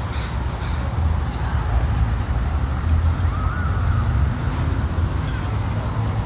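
Steady low rumble of city traffic, with a brief faint warbling chirp about three and a half seconds in.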